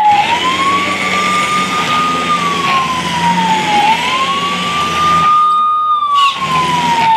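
Electronic siren of a toy police SUV sounding a slow wail: a high tone that holds, slides down, then sweeps back up, repeating about every three and a half seconds over a low steady hum.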